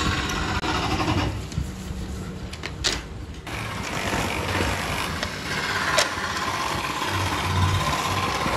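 Wood being rubbed by hand with sandpaper makes a scratchy sound for the first few seconds. After that a small electric bench motor with a sanding wheel on its spindle runs steadily with a hum and a faint whine, as the edges of a stack of wooden trays are held against it.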